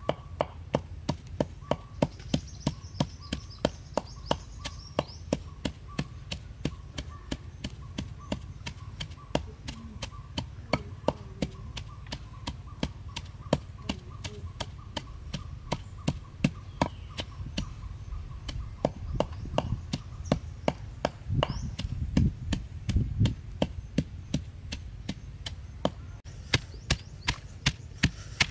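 Wooden pestle pounding chilies, garlic and herbs in a mortar: steady, even knocks about three a second, each with a dull thud as it strikes the wet spice paste.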